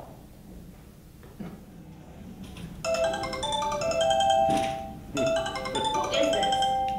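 A mobile phone ringtone, a short marimba tune that plays twice in a row, starting about three seconds in.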